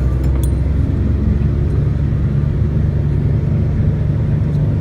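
Jeep Wrangler JK engine running with a steady low drone while the Jeep drives through flood water, with a few brief clicks near the start.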